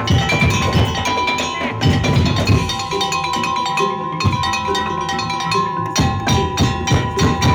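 Madurese daul (tong-tong) ensemble playing: steady drum beats with wood-block and tuned metal percussion over a held high note.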